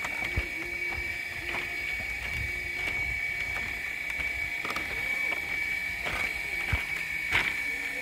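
Woven bamboo deck of a hanging footbridge creaking and clicking irregularly under footsteps, with occasional low knocks and a sharper knock near the end. A steady high whine runs underneath.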